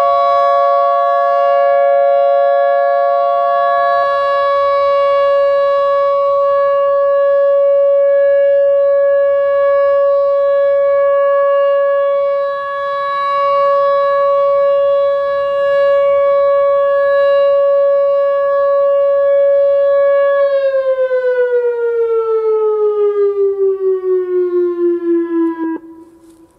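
Outdoor tornado warning siren sounding a loud, steady tone, with a second, higher tone dropping out about four seconds in. Near the end it winds down, falling in pitch for about five seconds before cutting off.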